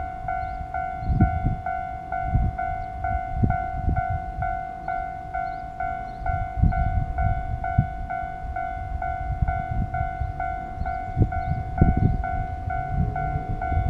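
Japanese electronic level-crossing bell ringing steadily while the barriers are down: one clear tone repeating about two and a half times a second, over an irregular low rumble.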